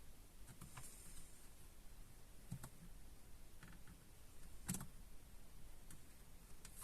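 A few faint, scattered clicks, about three clear ones several seconds apart, over a quiet low background hum.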